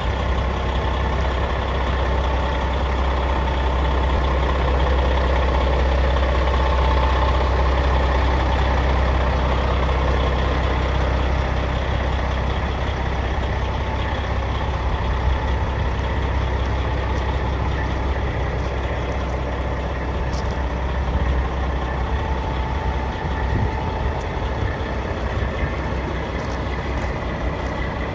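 1994 Peterbilt 379 semi truck's diesel engine idling steadily, a deep even rumble that eases slightly in the second half.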